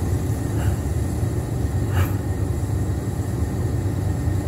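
Steady low background rumble, with faint clicks about half a second and two seconds in.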